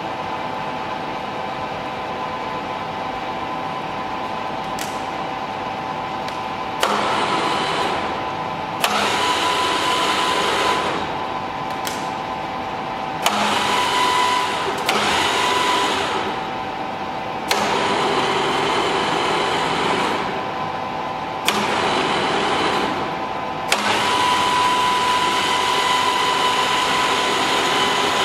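Ernault Somua Cholet 550 lathe running with a steady whine. About seven times a lever click is followed by a louder gear whir lasting one to four seconds before it drops back, as the carriage power feed is engaged and released.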